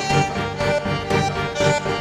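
Instrumental background music with a steady pulse of about two beats a second.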